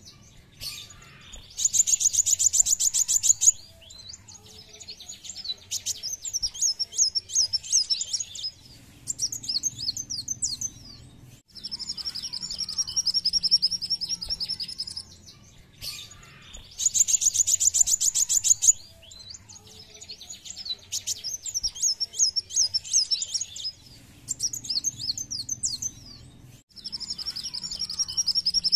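Male kolibri wulung (Van Hasselt's sunbird) singing high, fast song phrases: a rapid trill, a dense buzzy rattle and strings of sharp chirps. The sequence repeats about every 15 seconds.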